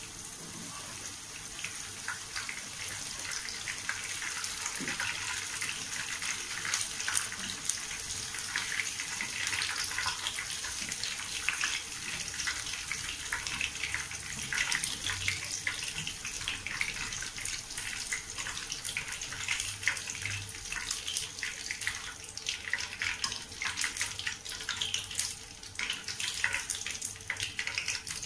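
Tofu cubes deep-frying in hot oil in a wok: a steady sizzle thick with small crackles and pops, as the cooked cubes are lifted out of the oil with a wire spider strainer.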